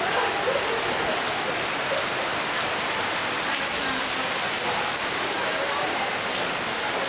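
Heavy rain mixed with hail pelting a paved courtyard and tiled roofs: a steady dense hiss with many small sharp ticks of impacts.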